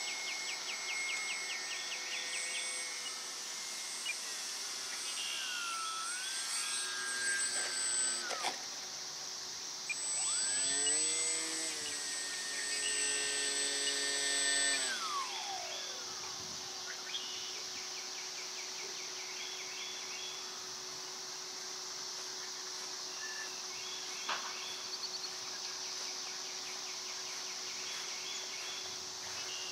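A small foam-board RC plane's electric motor and propeller whining overhead: the pitch rises and then cuts off sharply about eight seconds in, and the motor throttles up again about ten seconds in and winds down by about fifteen seconds. A steady high hiss of insects runs underneath.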